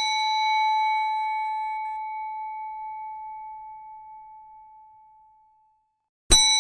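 Reception desk bell ringing after a single tap, one clear tone with higher overtones fading away over about five seconds. It is tapped again once near the end.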